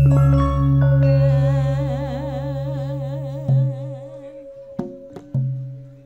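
Campursari band music: a loud low note comes in at the start under held tones and a wavering melody, a few drum strokes sound in the second half, and the music dies away near the end.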